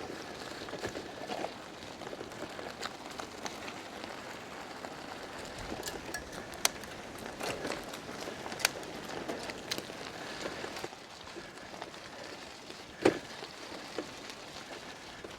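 Bicycle rolling along a gravel track: a steady crunch of tyres on loose stones, with scattered sharp clicks and knocks, the loudest a little before the end.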